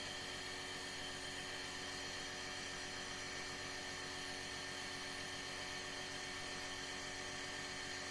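Electric compressor nebulizer running steadily, a constant machine hum over a hiss, as it turns the liquid medicine in its cup into mist for the mask.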